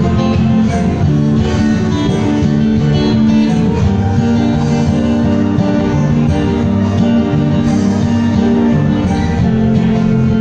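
Acoustic guitar strummed through an instrumental passage of a song.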